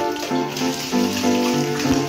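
Background music of keyboard-like notes over a steady hiss of water in a bathtub.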